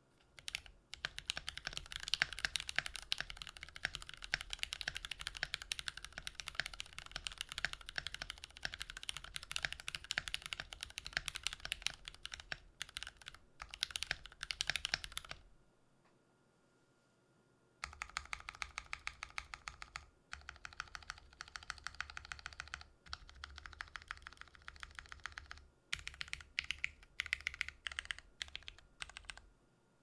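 Fast touch-typing on a YC66 keyboard with lubed Cotton Candy light tactile switches and Artifact Noir keycaps: a rapid stream of keystrokes at about 114 words a minute. It stops for about two seconds around the middle and breaks off briefly a few times near the end.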